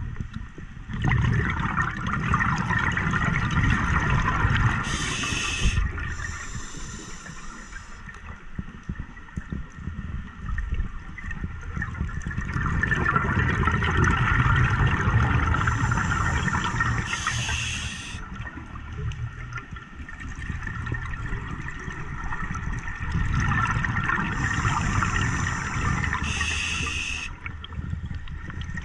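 Scuba diver breathing through a regulator underwater: rushes of exhaled bubbles and the hiss of the regulator, about three slow breaths.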